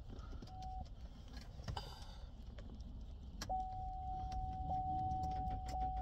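A car's dashboard warning tone as the ignition is tried without the engine cranking: one short beep about half a second in, then a steady beep held for nearly three seconds. A low rumble runs underneath.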